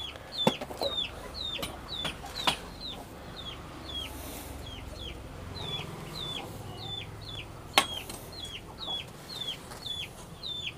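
Ducklings peeping steadily: a short, high, falling peep about twice a second. A few sharp knocks come through, the loudest about eight seconds in.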